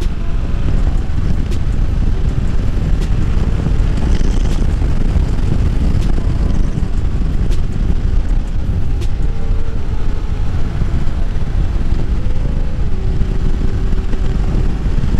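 Yamaha Tracer 7's parallel-twin engine running under way, its steady drone shifting pitch a few times, mostly buried under heavy wind rush on the helmet or bike-mounted microphone.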